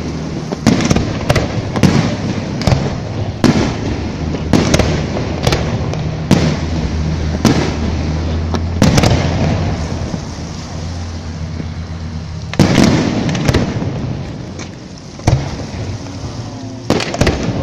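Fireworks display: aerial shells bursting in quick, irregular succession, sharp bangs about every half second to a second over a continuous rumble and noise. After about ten seconds the bangs thin out, with a brief cluster later on and a few more near the end.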